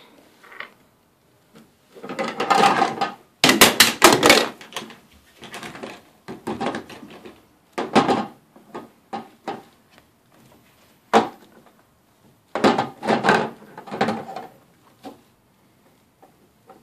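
Plastic toy kitchen and toy dishes being handled by a toddler: irregular bursts of knocking and clattering as pieces are moved and the little oven door is opened and banged, with quiet gaps between.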